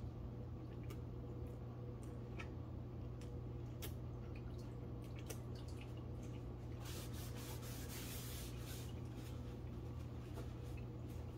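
Close-up chewing of a bite of crispy fried chicken sandwich: scattered small wet mouth clicks over a steady low hum. About seven seconds in, paper wrapper rustles for a couple of seconds.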